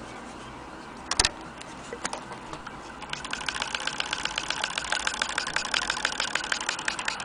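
Antique Willcox & Gibbs chain-stitch sewing machine stitching denim: a sharp click about a second in, then the machine gets going and settles into a fast, even clicking of the needle mechanism from about three seconds in.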